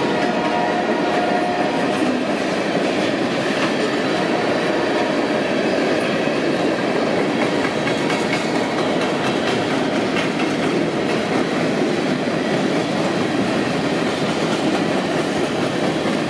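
A freight train of boxcars, covered hoppers and flatcars rolling past, with the steady noise of its steel wheels running on the rails.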